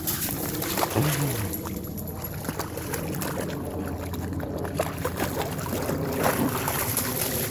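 Shallow water splashing and sloshing as a young German Shepherd paws at it and dips its muzzle in.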